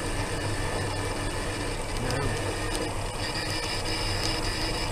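A small vehicle's drive running steadily as it rolls along a concrete street, heard close from a camera mounted on its body. A thin high whine joins about three seconds in.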